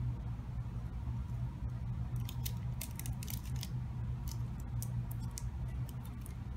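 Tinfoil and tape being handled and pressed down on a wooden mousetrap: scattered small crinkles and ticks, most of them in the middle stretch, over a steady low hum.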